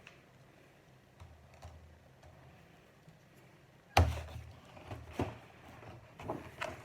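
Plastic Lego bricks being handled and snapped together: faint clicks, then a sharp knock about four seconds in, followed by several more clicks and taps.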